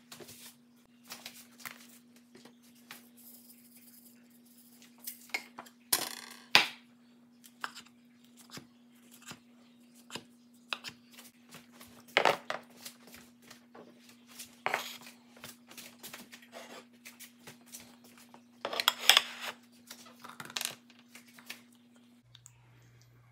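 Irregular kitchen handling sounds: knocks and clicks of plates and utensils being moved and set down on a table, with a few louder short scraping or rustling sounds. A low steady hum runs underneath and drops to a lower hum near the end.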